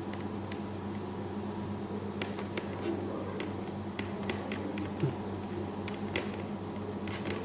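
Faint scattered clicks and ticks of the thin insulated wires of a UTP LAN cable being handled and pulled straight, over a steady electrical hum.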